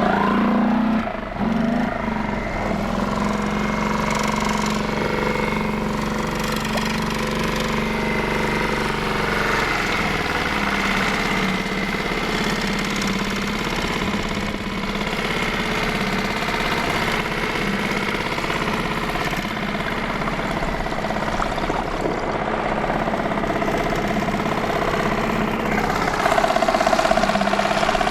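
Boat motor running steadily, with a constant low hum.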